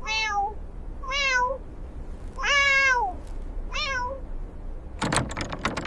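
Kittens mewing: four separate high-pitched mews, each falling in pitch, the third the longest and loudest. A short burst of crackling rustle follows near the end.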